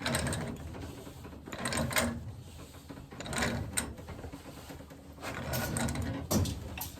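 Pipe wrench tightening a threaded pipe fitting, the last turns on an already snug joint. Metal grinds and creaks in repeated strokes about every one and a half to two seconds as the wrench is worked round.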